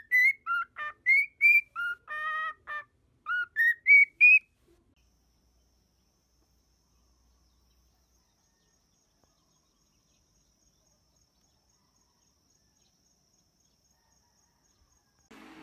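Cockatiel whistling at its reflection: a quick run of about a dozen short whistled notes, most of them rising, which stops about four and a half seconds in.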